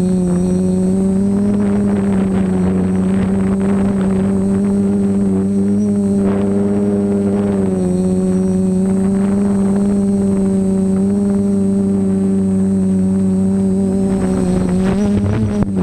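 Multirotor drone's electric motors and propellers whining steadily, heard close up from the onboard camera; the pitch wavers slightly as it manoeuvres, with a brief change near the end as it descends.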